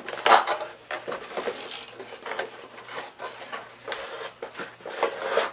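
A toy car's box and packaging being handled and opened: irregular rustling, scraping and knocking, with the sharpest knock about a third of a second in.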